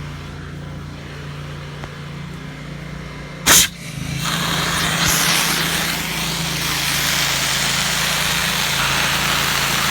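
Soft wash system running with a steady low hum; a sharp, loud burst about three and a half seconds in, then a steady hiss as the spray of cleaning solution starts at low pressure, about 60 to 120 psi.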